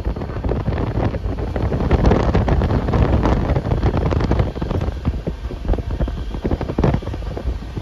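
Wind buffeting the microphone over the rumble and irregular clatter of a moving passenger train's wheels on the rails, heard at an open coach door.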